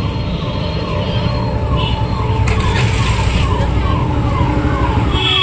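An electronic siren repeats short falling chirps, about two to three a second, growing louder near the end. Under it runs the steady low rumble of the rickshaw's ride through traffic.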